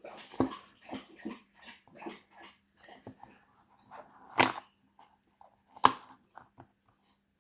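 A dog lapping water from a bowl: a run of short wet lapping clicks, about three a second, with two louder sharp knocks about four and a half and six seconds in.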